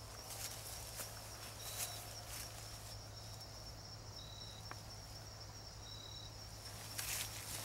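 Insects trilling steadily and high-pitched in woodland, with a few short high notes, over soft footsteps rustling through grass and undergrowth that get louder near the end.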